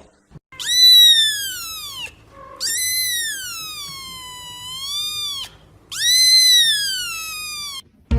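A domestic cat yowling three times in long, drawn-out meows, each rising then falling in pitch. The middle yowl is the longest and dips and swells again in the middle.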